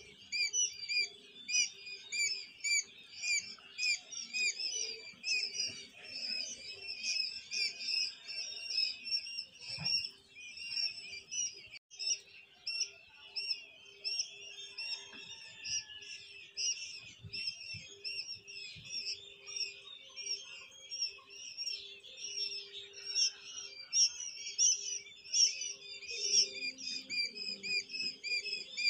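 A crowd of quail chicks peeping nonstop, many short, high chirps overlapping, over a faint steady hum.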